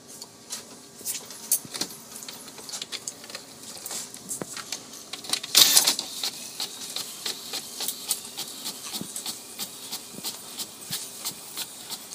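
HP all-in-one inkjet printer printing: a steady run of quick clicks and mechanical whirring as the print head shuttles and the paper advances, with one louder burst of feed noise about halfway through.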